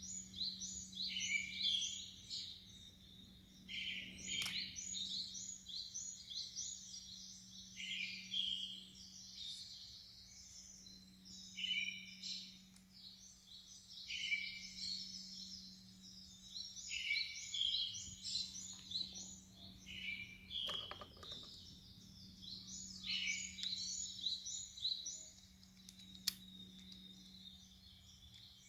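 Birdsong: small birds chirping in quick, repeated phrases every couple of seconds, over a steady low hum.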